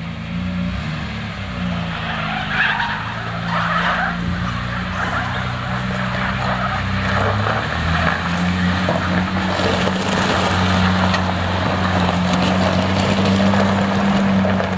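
Volvo TGB 13 6x6 off-road truck's engine running, its revs rising a little about halfway through and holding.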